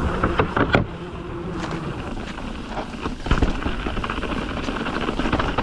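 Mountain bike riding fast down a rocky dirt trail: tyres rolling over dirt and stones with rattles and knocks from the bike, and wind noise on the microphone. A heavier knock comes about three seconds in.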